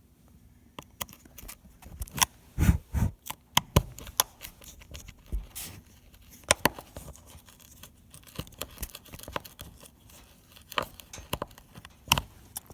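Screwdriver tip scraping and picking rust out of the star-shaped socket of a rusted bolt head on a steel spare-tire winch assembly, in irregular scratches and sharp clicks.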